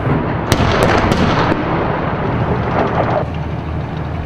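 Urban combat noise: gunfire, with several sharp cracks between about half a second and a second and a half in, over a continuous loud rumble.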